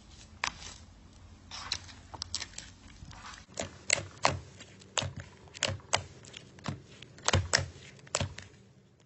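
A run of sharp clicks and taps at irregular spacing, about two a second.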